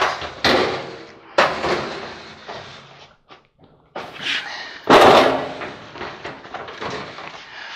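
Sheet-metal top panel of a White Westinghouse clothes dryer being handled, lifted and set back down: several sharp metal bangs and clatters, the loudest about five seconds in.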